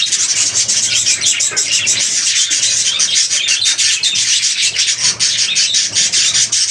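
A flock of budgerigars chattering: a dense, continuous din of many overlapping high chirps and clicks.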